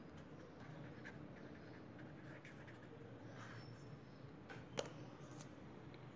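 Ballpoint pen scratching faintly on paper as a word is written and underlined, with one sharp click about three-quarters of the way through.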